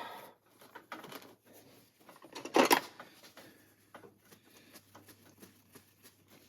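A tissue rustling and rubbing as it wipes down a chrome-plated ratcheting wrench, with small irregular handling noises and one louder rustle about two and a half seconds in.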